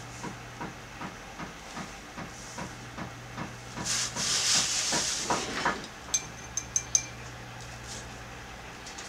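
Broad-nibbed calligraphy pen scratching across paper in short, quick strokes, then one longer, louder scrape, followed by a few sharp clinks near the end.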